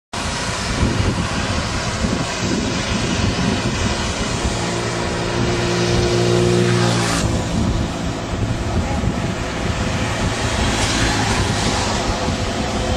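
Road and traffic noise heard from a bicycle riding along a wet road, with a motor vehicle's engine hum for a few seconds in the middle. The sound changes abruptly about seven seconds in.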